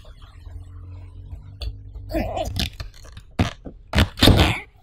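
Cardboard shipping box being slid and set down on a tabletop by hand: scraping and several sharp knocks, loudest three to four and a half seconds in, over a low steady hum.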